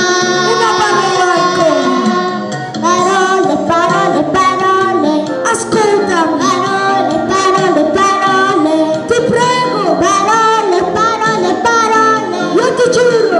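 Children singing into handheld microphones over backing music, amplified through the hall's sound system.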